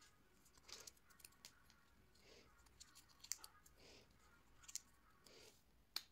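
Faint handling of small cut paper pieces on a craft mat: soft rustles with several sharp little clicks and taps, the loudest a bit over three seconds in and near the end.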